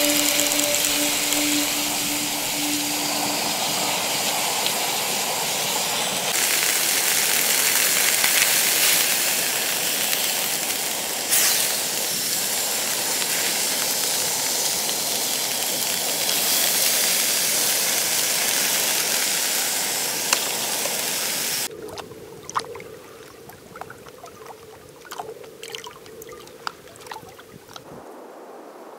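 Trout frying in a small camping frying pan, a loud steady sizzle with an occasional pop. About three-quarters of the way through it drops abruptly to a much quieter hiss with scattered small crackles.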